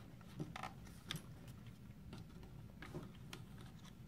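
Faint, irregular small plastic clicks and taps as a flathead screwdriver pries the green plastic terminal cover off a molded case circuit breaker.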